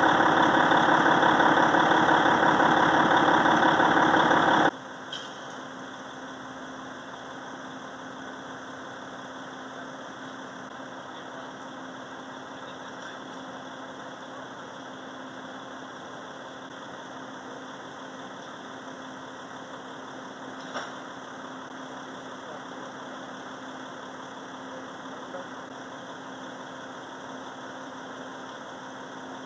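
Fire engine idling with a steady engine hum. For the first few seconds a much louder engine noise covers it, then cuts off suddenly about five seconds in.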